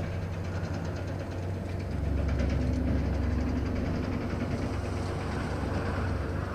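Heavy engine running with a low, steady hum, growing louder about two seconds in and easing off a little later.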